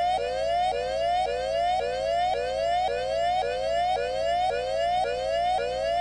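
Emergency alert system siren tone: a rising whoop repeated about twice a second, each sweep climbing in pitch and then dropping back at once to start again.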